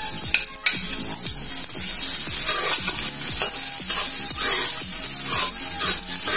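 Minced garlic sizzling in hot oil in a large pot, stirred and scraped with a metal spoon in repeated strokes about twice a second. The garlic is being sautéed toward browning.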